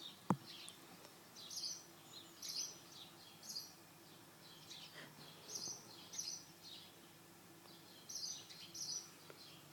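Tree and house sparrows chirping, short high chirps repeated every half second or so in loose clusters. One sharp click sounds about a third of a second in.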